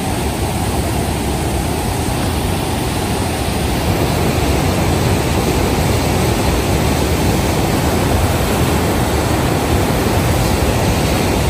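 Steady loud rushing of Niagara Falls' falling water, an even noise with a deep low rumble, getting a little louder about four seconds in.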